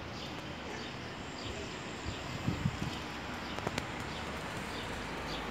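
Wind rustling the leaves of potted poplar saplings, a steady hiss, with faint bird chirps over it and a few soft knocks around the middle.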